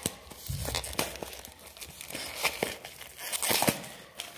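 Packaging crinkling and rustling with many short crackles and clicks as hands handle and open a small printed cardboard box.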